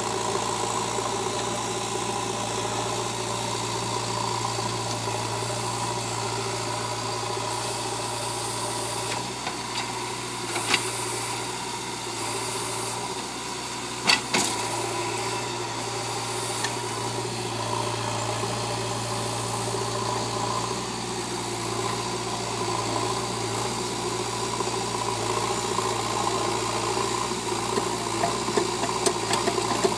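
JCB backhoe loader's diesel engine running steadily while the backhoe arm digs a trench. Two sharp knocks come about 11 and 14 seconds in, and a rattling clatter builds near the end.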